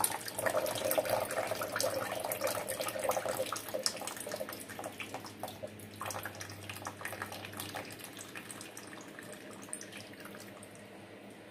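Water draining out of a tilted clear plastic orchid pot of wet bark substrate after a brief soak, trickling and dripping into the container below and thinning out toward the end.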